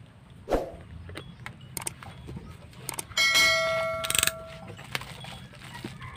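A bell-like ding sound effect about three seconds in, ringing for about a second and a half; it is the loudest sound. Around it are small clicks and rustles of a plastic mailer bag and a utility knife being handled, with a thump about half a second in.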